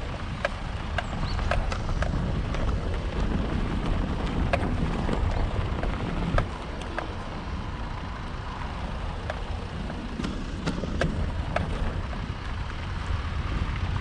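Motorcycle running on a rough, unpaved mountain road, a steady rumble with scattered sharp clicks and knocks throughout.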